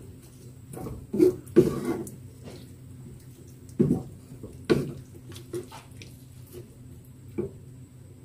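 Wooden spatula stirring a thick coconut-milk stew in a metal pan: wet sloshing and scraping strokes at irregular intervals, about half a dozen, over a steady low hum.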